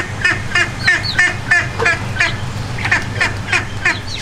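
Young ducks and chicks calling in a rapid stream of short peeps, several a second, over a steady low hum.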